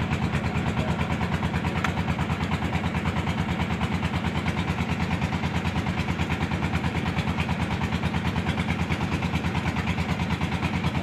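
A small boat's engine running steadily at an even pace, with a fast, regular chugging pulse.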